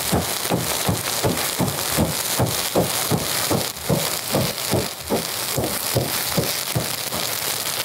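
A petroleum oil fire burning on a pool of water around a small wooden boat: a steady rushing of flame that pulses about four times a second, with crackling.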